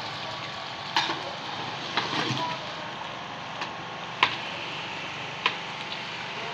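Long metal ladle knocking and scraping against a large aluminium cooking pot as meat is stirred, a handful of sharp clanks over a steady background hiss.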